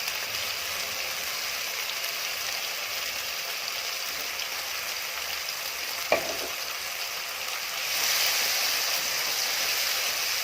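Ginger paste, ground with milk, sizzling steadily in hot ghee in a kadhai as its moisture cooks off. There is a single short knock about six seconds in, and the sizzle grows louder about eight seconds in.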